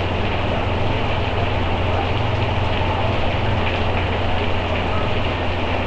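Steady hiss with a low hum underneath, unchanging throughout: background noise with no speech.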